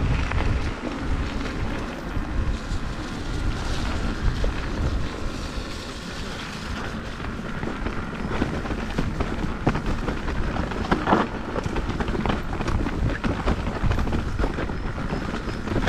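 Mountain bike riding down a trail: a continuous low rumble with tyre noise and many short clicks and rattles as the bike goes over bumps.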